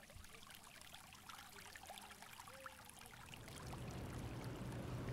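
Water trickling and splashing, fading up from quiet. A low hum comes in about three and a half seconds in and grows louder.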